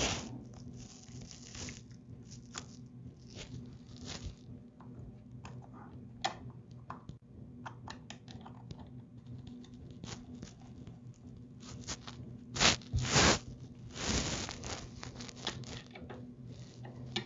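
Gloved hands working on a lawn mower's engine: scattered small clicks, taps and rustling, with a few louder scraping rustles about three-quarters of the way through, over a faint steady low hum.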